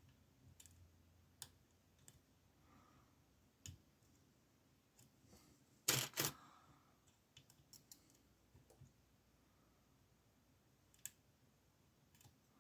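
Faint, scattered metallic clicks of a small lock pick and tension wrench working in a 20 mm Amtech padlock, with a louder pair of clicks about six seconds in.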